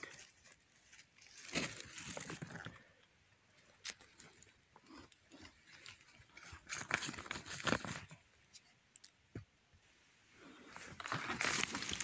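Dry forest leaf litter and twigs crunching and rustling underfoot as someone walks, in irregular bursts with a few sharp clicks.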